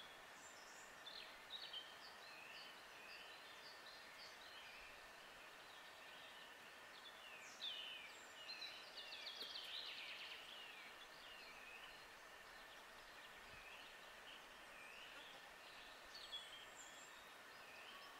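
Faint woodland birdsong: several small birds chirping and trilling, with a busier stretch of rapid song from about 8 to 11 seconds in, over a steady faint hiss.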